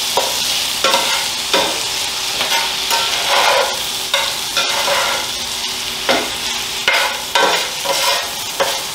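Diced ham frying and sizzling in a cast iron skillet while a spatula stirs and scrapes it around the pan, in irregular strokes about every second or so.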